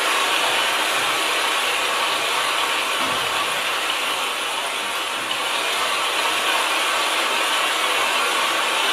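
Audience applause: steady, dense clapping.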